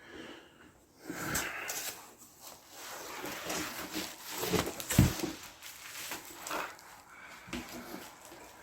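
Cardboard packaging and metal parts being handled: rustling and scattered knocks, the sharpest about five seconds in.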